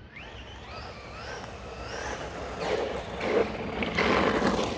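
Maverick Quantum MT Flux brushless RC monster truck accelerating toward and past the camera: a rising whine from the motor and drivetrain, with a rushing noise that grows as it nears and peaks as it passes about four seconds in.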